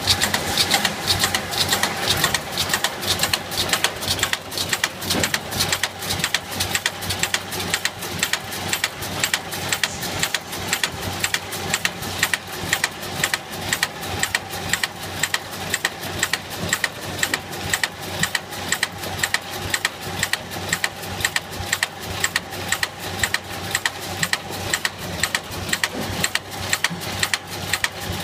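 Refrigerator-condenser wire welding machine, a multi-electrode spot welder, working through its welding cycle. A sharp clack comes about twice a second as each wire is welded onto the tube, over a steady machine hum.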